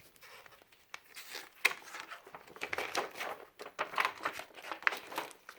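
Something crinkly being handled: irregular crinkling and rustling with sharp crackles, the loudest about a second and a half in.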